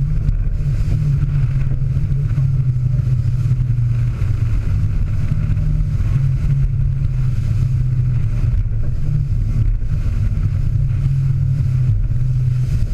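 Fishing boat running at speed: the engines hold a loud, steady drone, with water rushing along the hull.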